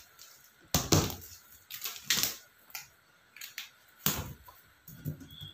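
Black cage-frame rods clacking and knocking together as they are handled, a handful of sharp clicks with rustling between them.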